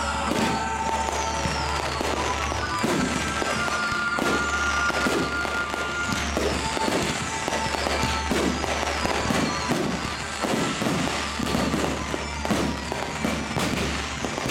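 Consumer (Class C) fireworks cakes firing rapid volleys of comets, a dense, continuous run of pops and bangs, over music with long held notes.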